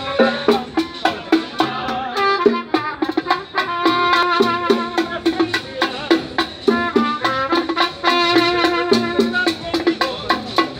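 Live band music: a trumpet playing a melody over a steady percussion beat.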